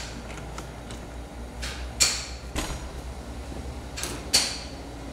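A few sharp clicks and scrapes of a hand tool and engine-bay parts being handled, a second or two apart, the loudest about two seconds in, over a low steady hum.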